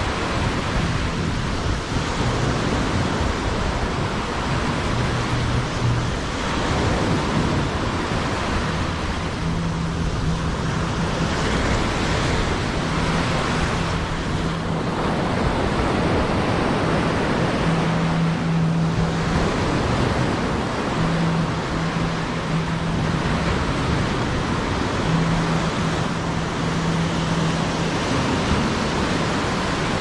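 Surf washing on a beach: a steady rush of wave noise that swells and eases every few seconds, with faint music playing short low notes underneath.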